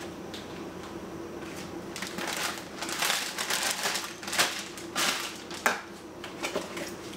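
Clear plastic zip-top bags crinkling and rustling as raw meat is handled and tipped from a plastic bowl into a bag, with a couple of sharp knocks in the second half.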